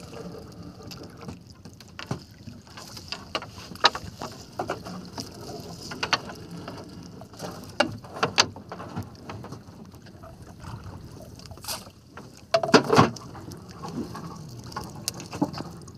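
Scattered knocks and clicks on a small fishing boat as a gillnet is brought in, with a louder burst of clatter late on.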